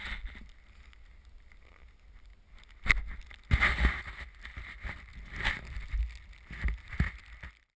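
Powder snow hitting and scraping a camera's housing: a low rumble and hiss, with a few sharp knocks from about three seconds in. The sound cuts off abruptly near the end.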